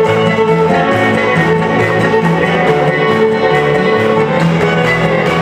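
A live string band plays an up-tempo number: the fiddle leads, holding long notes, over acoustic guitar, electric guitar and a plucked upright bass.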